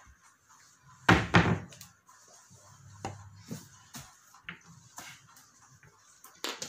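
Two heavy knocks in quick succession about a second in, followed by scattered lighter clicks and knocks.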